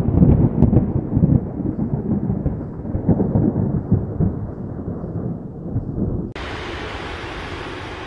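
Thunder rumbling: a long, low, crackling rumble that slowly fades. About six seconds in it cuts off abruptly, replaced by a steady hiss.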